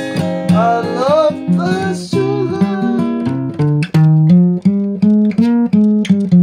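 Acoustic guitar music: plucked notes and chords in a steady rhythm, with a few gliding, bending notes in the first two seconds.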